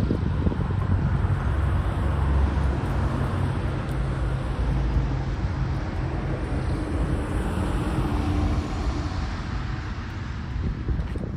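Road traffic: a motor vehicle driving past close by, a steady low engine hum under tyre noise, slowly fading near the end.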